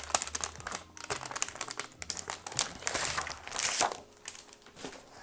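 Clear plastic packaging crinkling and crackling as sheets of vellum paper are slid out of it, in irregular rustling bursts: really loud plastic noises.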